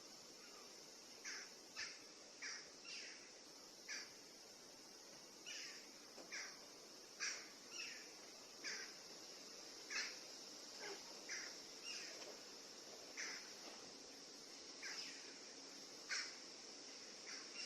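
Birds in the trees giving short, repeated calls, one to two a second at irregular spacing, over a steady high insect drone.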